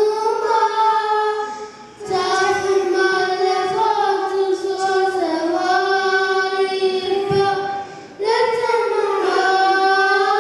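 Children singing a song together into handheld microphones, in long held phrases with two short breaks, about two seconds in and again about eight seconds in.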